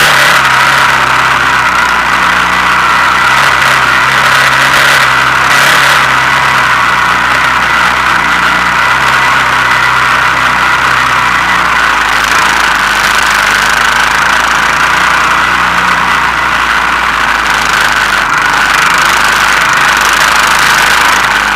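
Honda Foreman 450 ES ATV's single-cylinder engine running steadily while the quad tows two sleds through snow, heard from a camera mounted on its rear rack.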